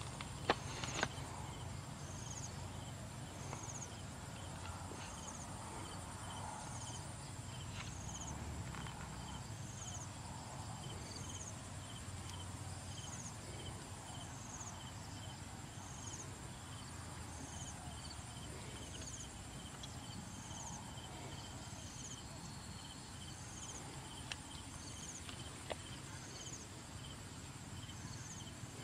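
Insects calling: a steady high buzz with a chirp repeating at an even pace, over a low rumble. A few sharp knocks near the start come from hands digging in wet mud.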